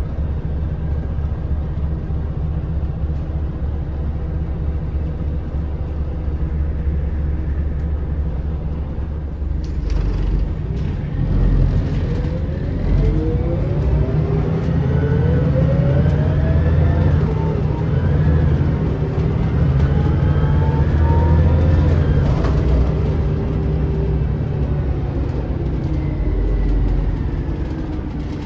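Scania L94UB city bus heard from inside the saloon: the engine runs at a steady low rumble, then after a clunk about ten seconds in it pulls away. The engine and transmission whine rise in pitch through two accelerations before easing off near the end.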